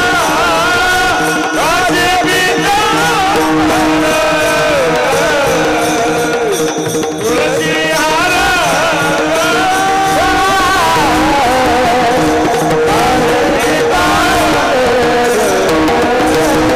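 Varkari devotional singing: a male voice sings long, ornamented melodic runs over a steady held drone, with pakhwaj drum accompaniment. The voice briefly drops out about seven seconds in.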